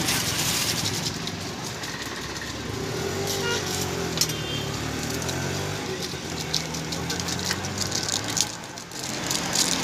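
Roadside street ambience: a steady engine hum of traffic, with a few sharp clicks and clinks.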